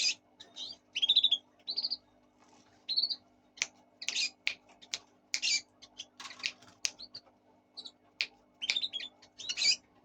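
Pet Fischer's lovebirds chirping, a string of short, high, squeaky calls at irregular intervals with a few sharp clicks among them.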